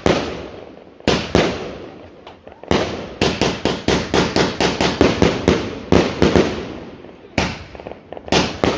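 Klasek Brocade War 25 mm consumer fireworks cake firing its brocade shots: a string of sharp bangs, each dying away over a second or so. After a few spaced shots comes a quick run of about five a second from roughly three to five and a half seconds in, then a few more spaced bangs.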